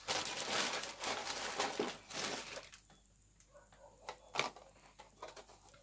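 Packaging rustling and crinkling as items are handled, followed by a few light clicks and taps.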